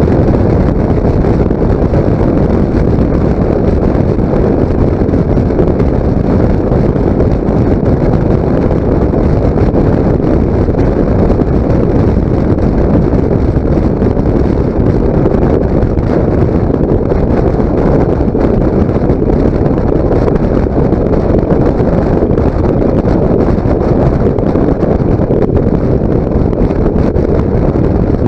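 Loud, steady wind rush over the microphone of a motorcycle cruising in sixth gear, with the ride's noise blended underneath and no distinct engine note standing out.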